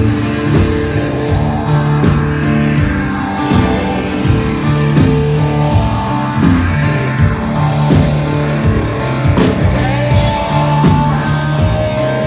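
Live country-rock band playing an instrumental passage: electric guitar lines, with a few bent notes near the end, over held bass notes and steady drum strikes.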